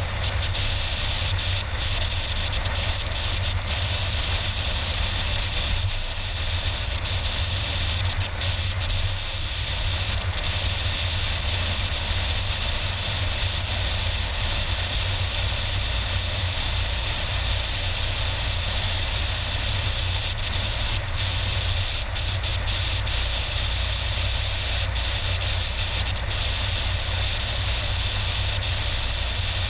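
Steady road and engine noise of a car cruising on a motorway, heard from inside the cabin: an even rumble and tyre hiss with no change in speed.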